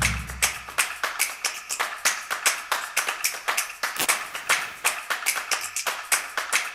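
Music track of a promotional video: a fast, even beat of sharp clap-like hits, about four a second. A deep bass hit fades out over the first second.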